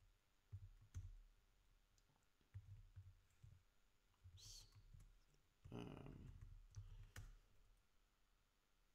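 Faint, sparse computer keyboard keystrokes during code editing: a few scattered clicks and soft low thuds against near-silent room tone.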